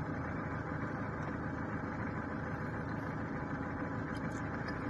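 A vehicle engine idling steadily, with a few faint clicks near the end.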